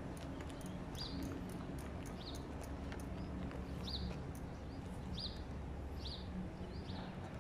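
A small bird chirping: short, high chirps repeated about once a second, over a steady low background hum.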